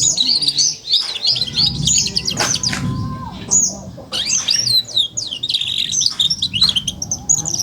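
Young canary, about four months old, singing a rapid twittering warble: the 'ngeriwik' song of a young bird, a continuous string of quick high chirps and trills that slide up and down without pause.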